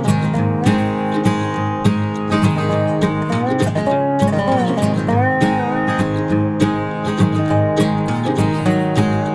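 Background music with a steady strummed rhythm.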